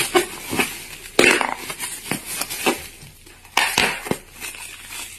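Clear plastic bag crinkling and crackling in a quick, irregular run of sharp rustles as a cat pushes its face into it. The crackles are loudest about a second in and again past three and a half seconds.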